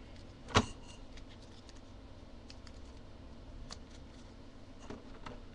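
Bicycle playing cards handled on a tabletop: a sharp tap about half a second in, then a few faint scattered clicks.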